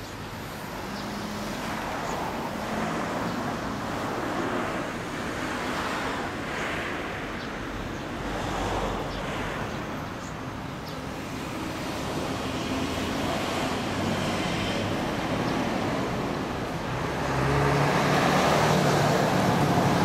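Motor vehicles running and road traffic passing, swelling and fading several times, with a steadier low engine hum that gets louder near the end.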